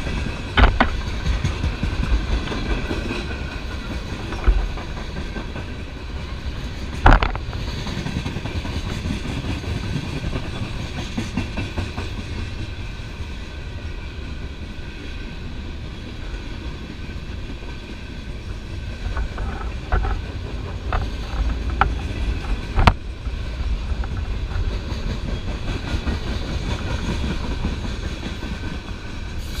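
A CSX freight train of open-top hopper cars rolling past with a steady low rumble and wheels clacking over the rails. There are occasional sharp metallic clanks, the loudest about seven seconds in and again past the twenty-second mark.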